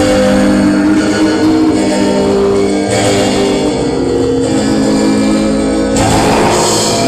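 Pop rock music with guitar over sustained chords that change every second or so, with little or no singing. The sound brightens about six seconds in.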